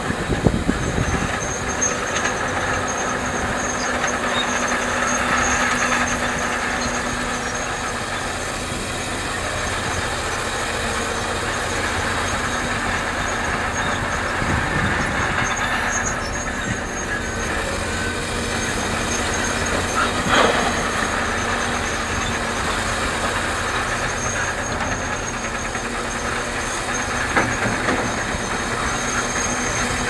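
Hitachi Zaxis 650 LC excavator's diesel engine running steadily under load as it digs and swings its bucket. There are a few sharp knocks, the loudest about two-thirds of the way through.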